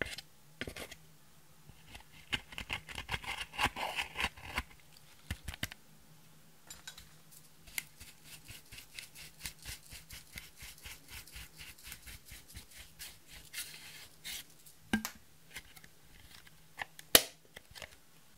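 Pressed eyeshadow being scraped and dug out of a plastic palette with a pointed tool, in many short scratchy strokes, at times in quick runs, with the crumbled powder breaking off. A single sharp knock stands out near the end.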